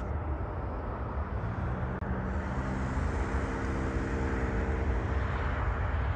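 Boeing 737 jet airliner landing: a steady engine rumble, with a cluster of steady engine tones and a hiss coming in about two seconds in and fading near the end.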